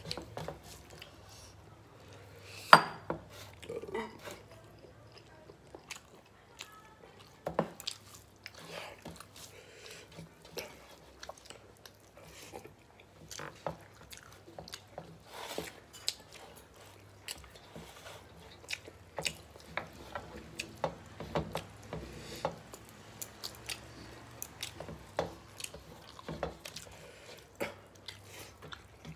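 Close-up chewing and smacking of two people eating rice and curry with their hands, with wet squelches of fingers mixing rice and light taps on steel plates. A sharp click about three seconds in stands out.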